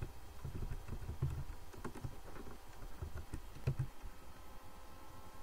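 Keystrokes on a computer keyboard: a run of irregular clicks as a terminal command is typed and entered. The clicks stop about four seconds in.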